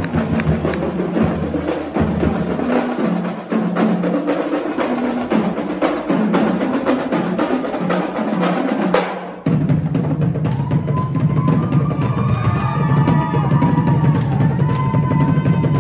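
A drumline plays fast, continuous snare and bass drum patterns, then stops abruptly about nine seconds in. After that, a steady low hum is heard under overlapping voices whooping and crying out.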